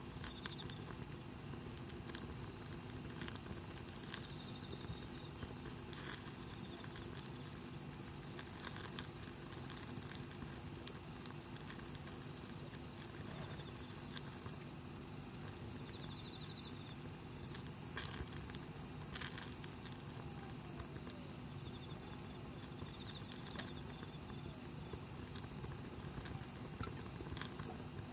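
Wood campfire burning, a steady hiss with scattered crackles and pops.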